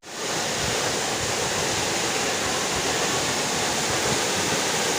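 Steady rushing of fast mountain water, a waterfall or river running over rocks, at an even level.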